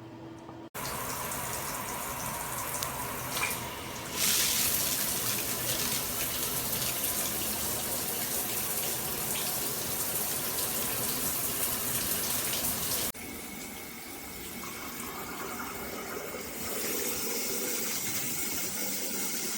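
Water spraying from a shower head, a steady rushing hiss. It gets louder and brighter about four seconds in and changes abruptly a few times, as with switching between spray modes or cuts between takes.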